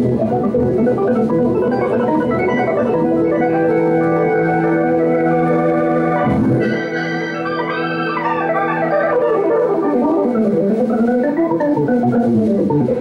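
Live band music carried by held organ chords. The low end drops out briefly about six and a half seconds in, and notes that slide up and down in pitch come in later.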